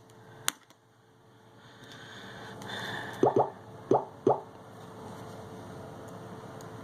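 Small sharp clicks of handling as an iPhone 6 display assembly is fitted back onto the phone: one click about half a second in, then four quick clicks, two in a fast pair, between about three and four and a half seconds in.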